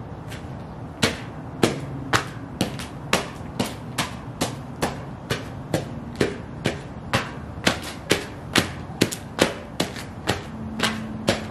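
Sheepskin Ugg boots stomping on a pile of loose magazines on concrete, a rhythm of sharp stomps at about two a second that starts about a second in.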